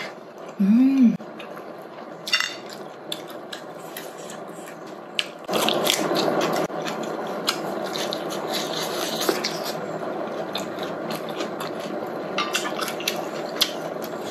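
Close-up eating sounds: wet chewing, chopsticks and utensils clicking against dishes, with a short hummed "mm" about a second in. A steady hiss sets in about five and a half seconds in under the clicks.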